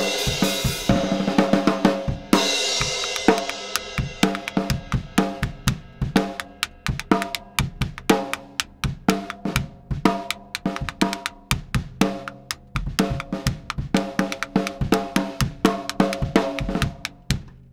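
Acoustic drum kit played in a steady rhythmic groove of snare, bass drum and hi-hat hits, with two cymbal crashes in the first three seconds.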